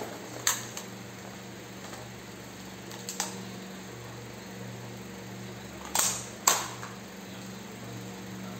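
Sharp plastic and metal clicks and clacks from an airsoft rifle being handled while its magazine, fed by an air hose, is fitted. Single clicks come about half a second in and about three seconds in, and two louder knocks follow about six seconds in.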